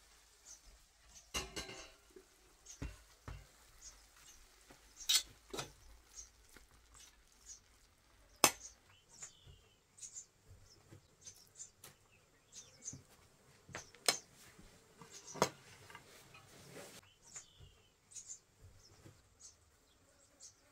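A metal spoon clinking and scraping against an aluminium pot while rice filling is scooped, with a few sharp clinks, the loudest about eight seconds in.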